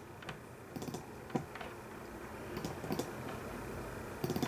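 Computer mouse and keyboard clicking: scattered single clicks, with a quick run of several clicks near the end.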